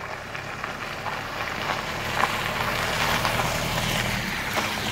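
A Vauxhall Vivaro campervan driving slowly across a gravel car park and passing close by, its tyres crunching on the loose gravel over the low running of its engine. The sound grows louder over the first few seconds as the van approaches.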